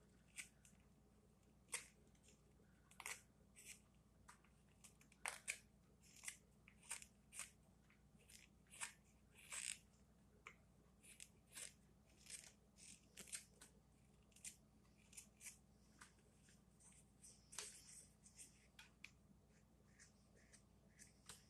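Straight carving knife slicing thin shavings from a wooden spoon: a run of short cutting strokes, irregular, about one or two a second.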